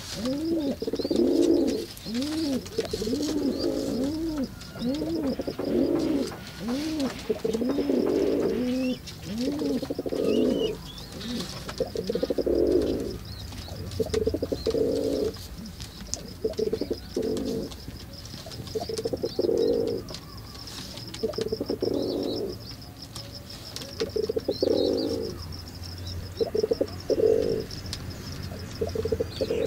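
Domestic pigeons cooing: a quick run of rising-and-falling coo notes, then separate bouts of cooing every second or two.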